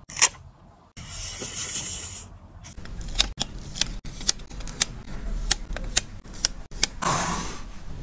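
Printed paper labels from a small thermal label printer being handled: a sharp snap near the start and a stretch of rustling. Then a run of crisp clicks and crackles, two or three a second, and a longer rustling swish near the end.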